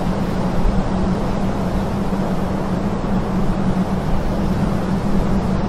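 Steady mechanical drone: an even rushing noise with a constant low hum beneath it.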